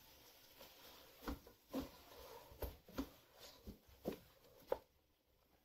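A slotted spoon stirring chicken and ketchup in a pot: a few faint, scattered knocks and scrapes of the spoon against the pot. It falls silent near the end.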